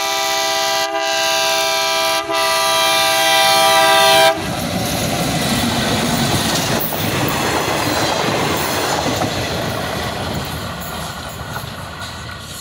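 ALCO diesel locomotive's horn sounding one long multi-tone blast as it approaches, growing louder with two brief dips, then cutting off suddenly about four seconds in. The locomotive and its two coaches then pass close by with engine and wheel noise that fades as the train moves away.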